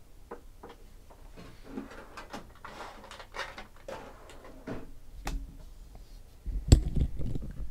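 A pair of dice being rolled across a table: scattered light clicks, then a sharp knock with low thumping about two-thirds of the way through.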